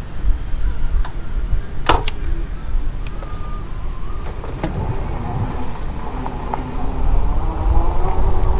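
Wind rushing over the microphone of a moving e-bike, with a few sharp knocks and rattles as it rolls over the wooden dock boards and onto the pavement. The strongest knock comes about two seconds in. From about halfway through, a faint wavering hum joins the wind.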